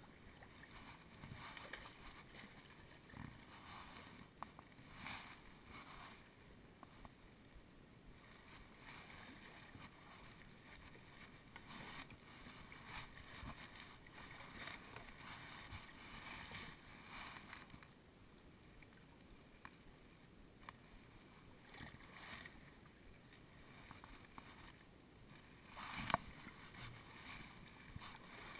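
Faint kayak paddle strokes: the blades dip and swish through shallow water about once a second, with one sharp knock near the end.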